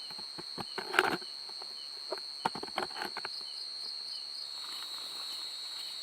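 Crickets trilling steadily in a high-pitched night chorus, with faint chirps repeating about twice a second. A few scuffs and knocks, like footsteps or handling of gear, come in the first three seconds, the loudest about a second in.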